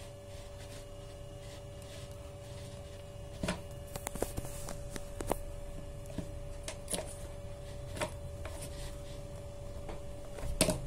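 Scattered clicks and knocks of a tight-lidded insulated food container being handled and pried at while someone tries to open it, over a steady faint hum.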